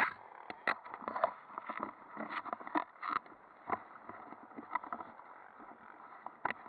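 Handling noise close to a helmet-mounted camera: irregular clicks, knocks and rustling as riding goggles and gear are handled.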